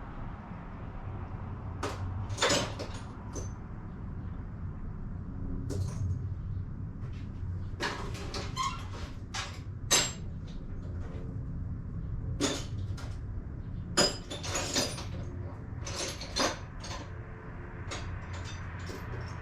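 Irregular sharp clicks and knocks of hand tools and parts being handled in an engine bay, over a steady low hum.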